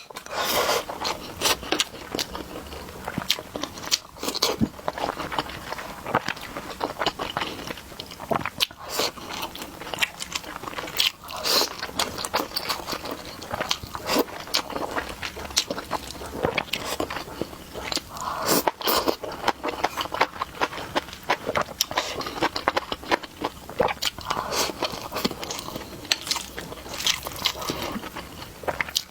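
A person eating: repeated bites and chewing, with many sharp crisp clicks and crunches.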